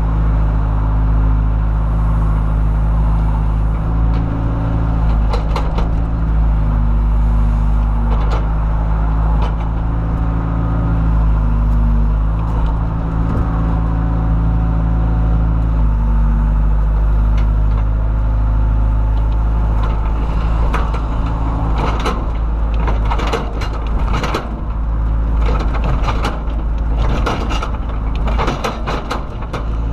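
John Deere 190E excavator's diesel engine running under hydraulic load, its pitch stepping up and down as the machine works. From about two-thirds of the way in, a run of clattering knocks and scrapes joins it.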